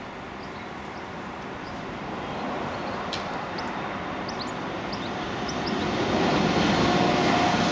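A vehicle passing: a steady rumble and hiss that swells to its loudest in the last couple of seconds. A few short, high chirps sound over it in the middle.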